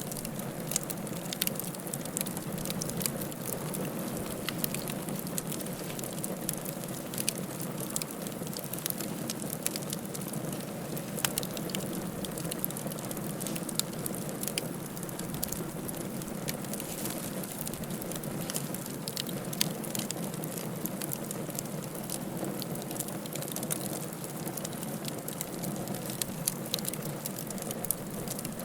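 Wood fire crackling in a fireplace: a steady rush of flames with frequent irregular sharp pops and snaps.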